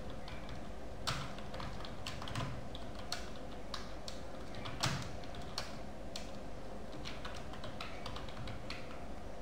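Typing on a computer keyboard: irregular key clicks, a few struck harder than the rest, over a low steady background hum.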